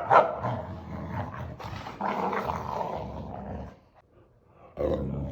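Boxer dog growling and grumbling in long rough runs, the attention-seeking 'talking' of a dog demanding play, with a short break about four seconds in.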